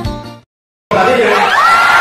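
Guitar music fades out, then after a short silence a large crowd breaks into cheering and shouting, with one long high call held over it.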